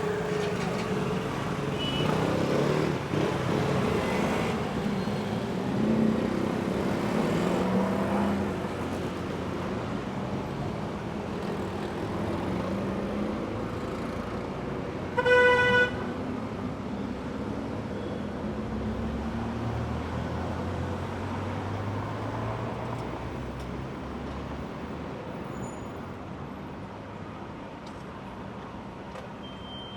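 City street traffic: cars pass steadily, with engines rumbling louder in the first few seconds. A car horn gives one short honk about halfway through.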